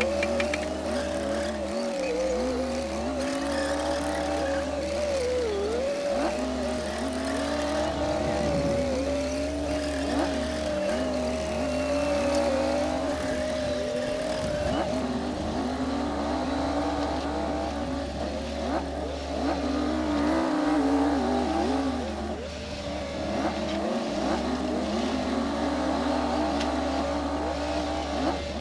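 Komatsu D60P bulldozer working, its diesel engine running steadily under load with a wavering whine that dips briefly now and then.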